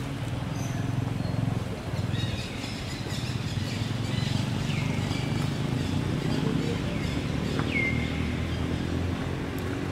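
Outdoor ambience: a steady low rumble with several short, high chirps that fall in pitch, scattered through the second half.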